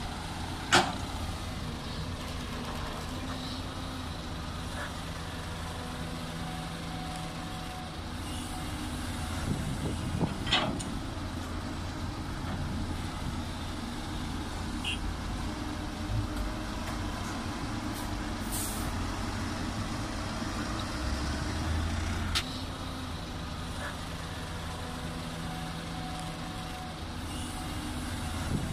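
Doosan DX225LC crawler excavator's diesel engine running under load, its note swelling as the hydraulics work to dig and swing loads of soil into a dump truck. A few sharp knocks stand out, about a second in, around ten seconds in and again past twenty seconds, and a short hiss is heard partway through.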